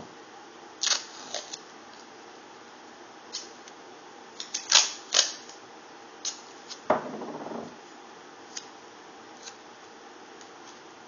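A scattering of sharp clicks and taps, loudest in a quick cluster near the middle, with a short rustle or scrape lasting under a second a little later.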